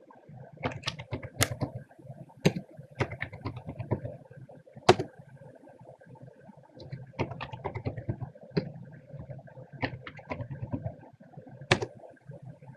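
Typing on a computer keyboard: irregular runs of key clicks, pausing for about two seconds in the middle, over a steady low hum.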